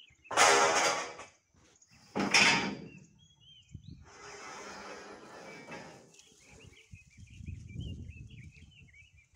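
Two loud animal calls near the start, each about a second long, over a rural background of small birds chirping and a steady insect buzz.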